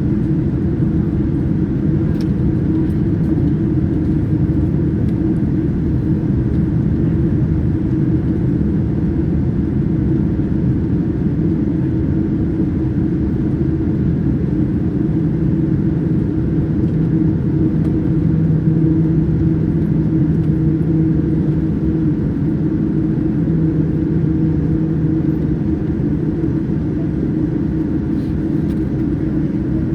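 Steady drone of a Boeing 787-9's engines and airflow heard inside the cabin, a constant low rumble with a faint hum that firms up about halfway through.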